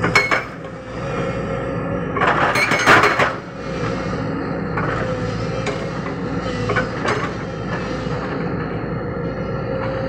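JCB 220 excavator's hydraulic breaker hammering rock: a steady rapid pounding over the excavator's running engine, with a louder crunching burst about two to three seconds in and a few sharp knocks.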